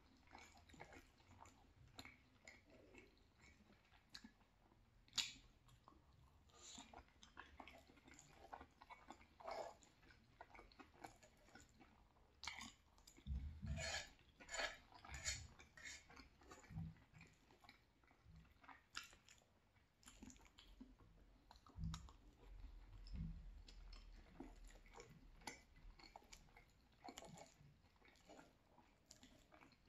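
Faint chewing of cheesy penne pasta: wet mouth sounds with scattered soft clicks and a few louder clusters of chewing.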